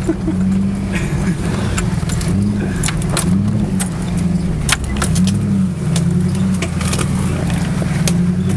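A Jeep Grand Cherokee's 4.7-litre V8 running at low revs under load while rock crawling, its pitch rising and falling with the throttle, with frequent sharp knocks and rattles over it.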